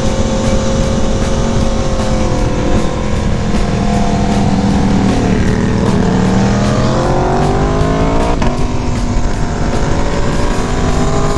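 Aprilia sport motorcycle engine heard from the rider's seat over steady wind noise. Its pitch sags a little, then climbs as it accelerates from about five seconds in, with a sharp break at a gear change near eight and a half seconds.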